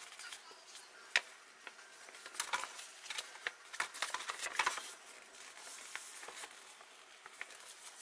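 Paper instruction leaflet being unfolded, folded and handled: rustling in short bursts, loudest about two and a half and four to five seconds in, with light clicks and taps.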